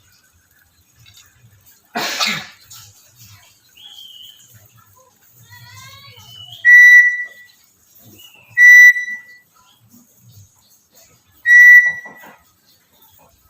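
Black-capped lory calling: a short harsh burst, a brief whistle and a run of quick rising chirps, then three loud, steady, same-pitched whistles about two to three seconds apart.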